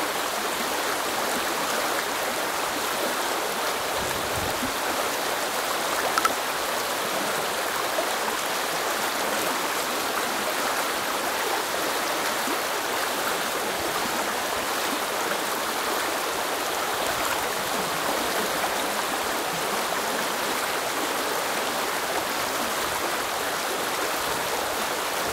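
Shallow river water running steadily over stones, an even rushing and burbling, with one brief sharp sound about six seconds in.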